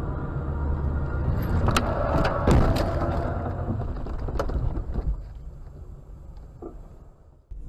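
Car crash heard from inside the car: road and engine rumble, then a burst of sharp knocks and crunching impacts about two seconds in. A few later knocks follow, and the noise fades away.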